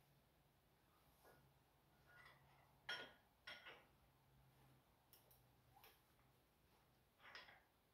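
Near silence, broken by a few faint, short metallic clicks and clinks of hand tools and parts being handled, the loudest about three seconds in. A faint low hum fades out partway through.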